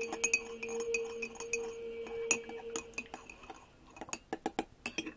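A spoon stirring in a mug, clinking against its sides many times in quick succession; the clinks grow sparser toward the end.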